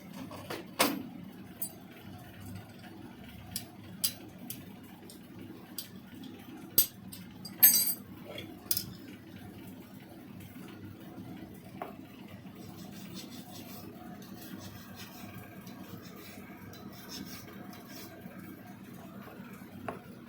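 Hard clinks and taps of hand tools against stone during carving, about ten scattered over the first nine seconds, the loudest about seven and a half seconds in. After that only a steady low hum with an occasional faint tick.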